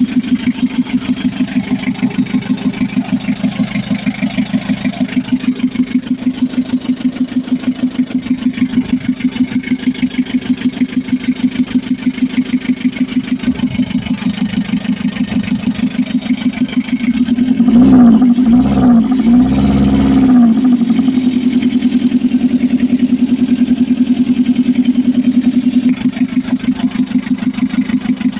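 Mitsubishi L300 FB diesel engine idling with a steady, even beat, running after its hard starting was cured by a new fuel feed pump. About two thirds of the way through it is revved up and back down twice, then settles back to idle.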